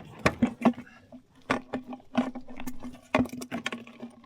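Irregular knocking and thumping on a hollow plastic kayak hull, a dozen or so knocks, many followed by a brief hollow ring.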